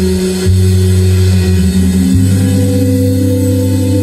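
Live instrumental post-rock from electric guitars and bass, played loud with long held notes. The bass note changes about half a second in and again about two seconds in.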